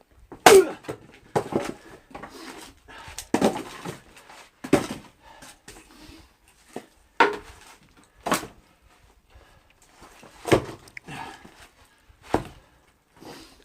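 Axe splitting oak firewood: about eight sharp wooden knocks spaced irregularly a second or two apart, as the blade strikes the logs and split pieces clatter down. The oak is knot-free and splits in one or two blows.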